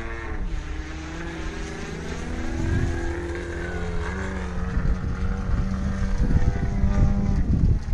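Radio-controlled model aerobatic airplane's engine and propeller running in flight, its pitch dropping about half a second in and rising again around four seconds in as the throttle changes. A low rumble grows toward the end.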